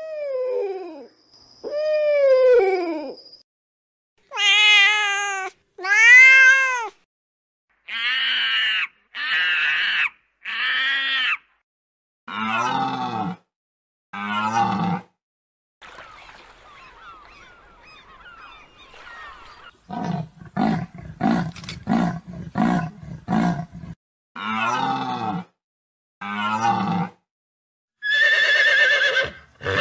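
A string of separate animal calls, each a second or two long with short gaps between, some arched or falling in pitch and a run of quick pulses about two-thirds through. Near the end a horse neighs with a wavering pitch.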